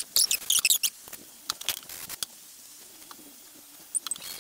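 Small steel oil pan bolts clinking and rattling together as they are handled on a workbench: a quick run of sharp, ringing clicks in the first second, then a few scattered clicks.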